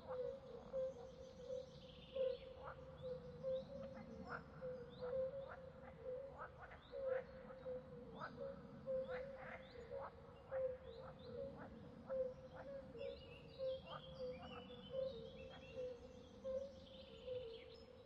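Swamp soundscape: birds chirping with many short sharp calls over a steady, pulsing frog chorus. About three quarters of the way through, a bird sings a quick run of falling high notes.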